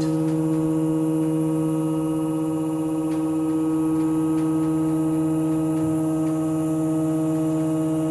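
Hydraulic power unit of a Z-blade sigma kneader running with a steady hum as its pump slowly retracts the hydraulic cylinder.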